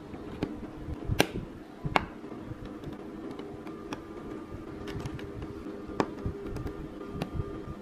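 Tiny plastic mini building bricks clicking as they are pressed and snapped onto the model, a handful of sharp clicks at irregular intervals. A steady low hum runs underneath.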